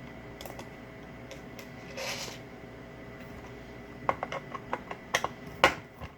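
Small metal parts and screws of an Onity hotel door lock being handled and set down on a work surface: a brief scrape about two seconds in, then a quick run of sharp clicks and taps near the end, over a faint steady hum.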